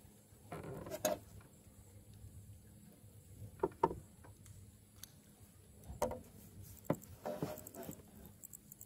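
Scattered short knocks, clicks and rustles as a fishing rod and reel are handled, in irregular bursts a second or more apart.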